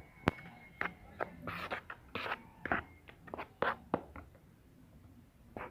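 Metal spoon stirring dry flour in a plastic bowl: irregular clicks and scrapes of the spoon against the bowl, three or four a second, thinning out after about four seconds.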